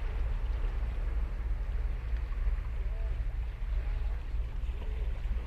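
Ocean surf breaking and washing onto a sandy beach, a steady hiss of water over a constant low rumble.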